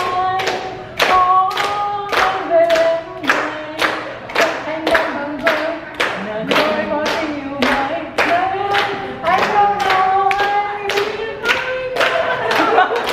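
A group of people singing a birthday song together and clapping in time, a little over two claps a second.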